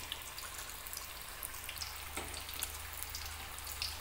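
Cheese samosas deep-frying in hot oil: a steady bubbling sizzle with scattered small pops.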